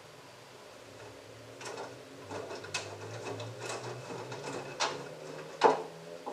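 LG front-loading washing machine drum starting to turn again during the final spin, its motor humming as the wet laundry tumbles. Sharp knocks from the load hitting the drum come about once a second, the loudest about five and a half seconds in.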